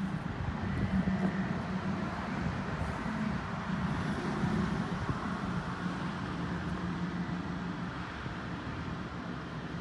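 Road traffic: a steady low engine hum under the rush of passing vehicles, swelling slightly around the middle.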